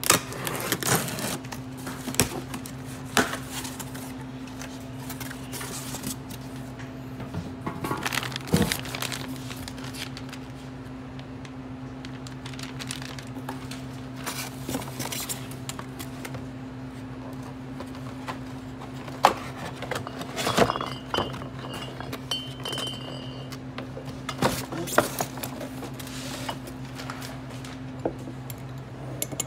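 A cardboard shipping box being unpacked: the packing tape slit, flaps and packaging rustling and knocking, then glass beer bottles clinking and one set down on a wooden counter beside a glass. A steady low hum runs underneath.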